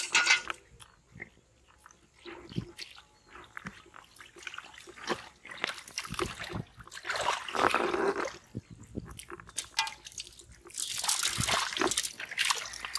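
Hands squelching and splashing in thick pond mud while groping for fish, in irregular wet bursts that are busiest about halfway through and near the end.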